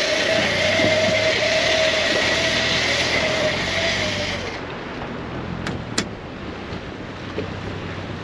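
A motor running steadily with a whine, cutting off abruptly about four and a half seconds in, followed by two sharp clicks.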